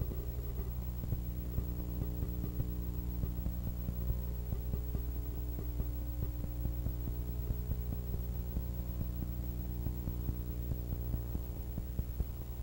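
Steady electrical mains hum with a stack of evenly spaced overtones, over faint irregular crackling clicks.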